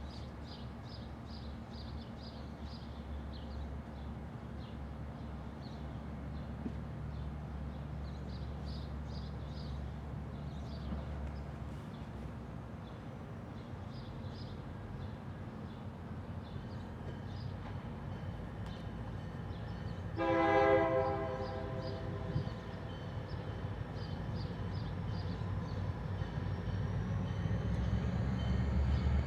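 Freight train's diesel locomotive running with a steady low engine rumble that grows louder toward the end, and one short horn blast about two-thirds of the way through.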